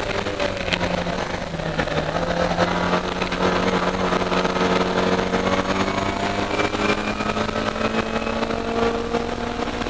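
Historic Austin Mini Cooper race car's A-series four-cylinder engine, heard from inside the cabin under racing load. Its pitch dips briefly about one and a half seconds in, then climbs slowly through the rest.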